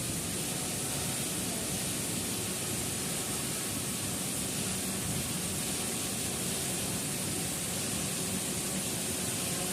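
Steady rushing noise of a waterfall, even and unbroken throughout.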